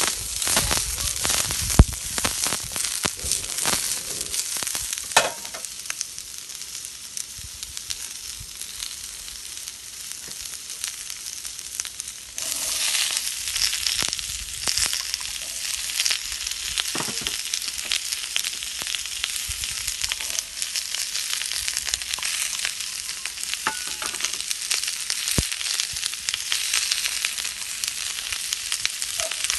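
Food sizzling and crackling as it fries in a pan, with a sharp click about two seconds in. The sizzle grows louder about twelve seconds in.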